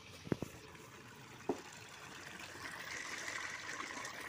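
Water gushing from the end of a metal pipe into a large, part-filled basin, a steady splashing pour that grows louder about halfway through. A few short knocks come near the start.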